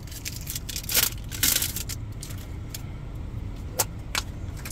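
Handling noises from a toy egg being picked up and fiddled with: a few short clicks and rustles over a steady low rumble of a car's cabin.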